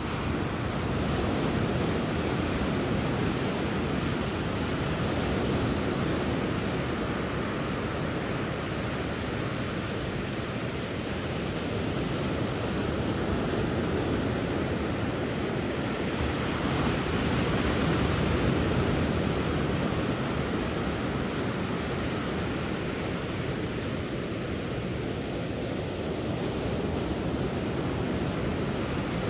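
Surf breaking on a beach under a typhoon swell, mixed with wind on the microphone: a steady rush of noise that swells and eases slowly every few seconds.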